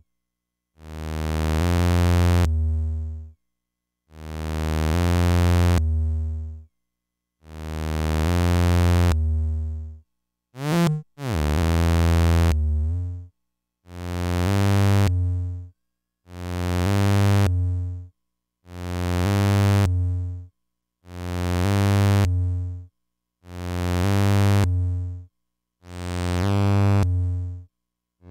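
Infernal Noise Machine desktop analog synthesizer sounding a low, buzzy bass note that pulses on and off in a slow rhythm, each note about two seconds long with short silences between. About ten seconds in, a quick pitch sweep breaks in, and after it the pulses come a little faster.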